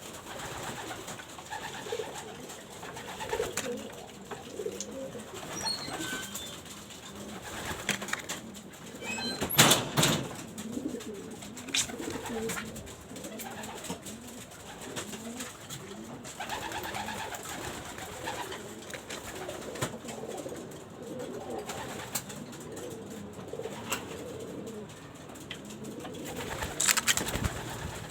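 Pigeons cooing over and over. Two short, louder noisy bursts come about ten seconds in and near the end.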